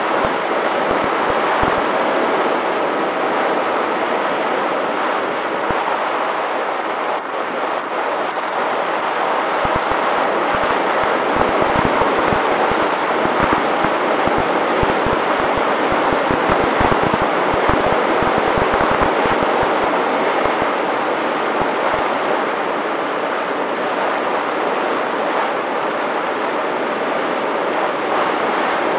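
Volantex Ranger 1600 RC plane in flight, heard from its onboard camera: a steady rush of air over the microphone with a faint constant whine from its electric motor and propeller, and gusty low buffeting in the middle.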